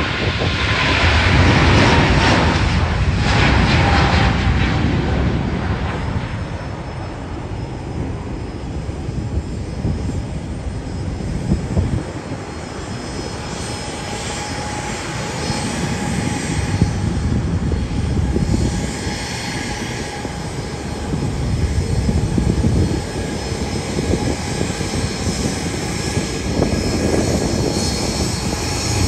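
Airbus A350-900's twin Rolls-Royce Trent XWB turbofans at takeoff power, a loud steady jet rumble as the airliner rolls and climbs away. A fan whine falls in pitch over the first few seconds as it passes.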